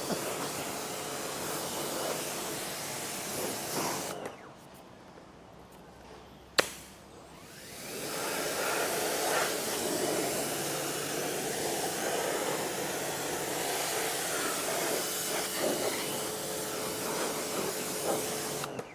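Stihl REA 60 Plus battery pressure washer spraying, its pump humming under the hiss of the water jet. The spray stops about four seconds in, a single sharp click follows a couple of seconds later, then the jet builds back up and runs steadily until it cuts off at the end.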